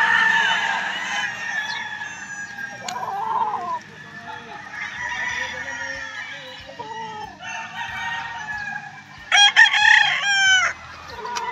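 Gamecocks crowing over one another across the farm, overlapping calls almost without a break, with one much louder crow about nine seconds in that lasts over a second.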